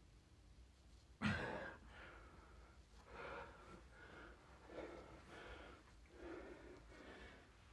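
A man breathing hard after a set of bodyweight Superman exercises, with heavy breaths roughly once a second. The loudest is a sudden one about a second in.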